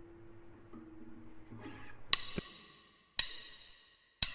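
Background music in a quiet break: a held note dies away, then four short struck notes ring briefly and fade.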